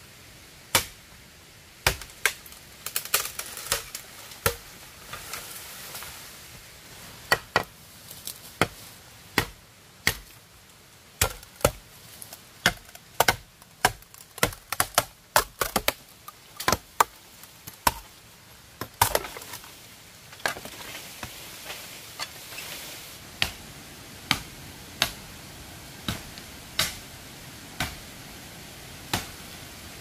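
Repeated sharp strikes of a tool into wood, at an uneven pace of about one or two a second, with short pauses between runs of blows.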